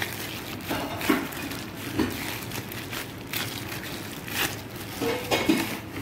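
Bread dough being kneaded by hand on a table covered with plastic cling wrap: a soft thump about once a second as the dough is pushed and pressed down, with the cling wrap crinkling underneath.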